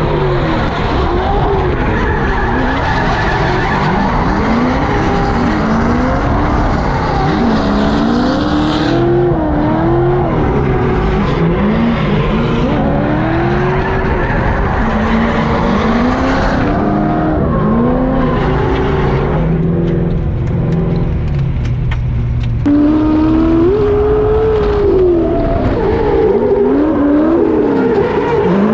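Drift car engine revving hard, its pitch swooping up and down over and over, with tyres squealing and skidding. The sound changes abruptly three times.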